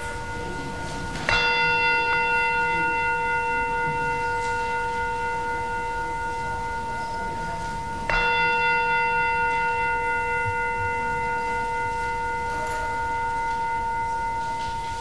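A bell struck twice, about seven seconds apart. Each stroke rings on as a clear chord of several tones that fades slowly, and the second ring is still sounding at the end.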